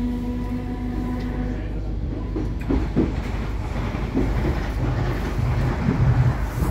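A moving passenger train heard from inside the carriage. A steady humming tone fades out about a second and a half in, then the wheels rumble and clatter with sharp clicks as the train crosses points leaving the station.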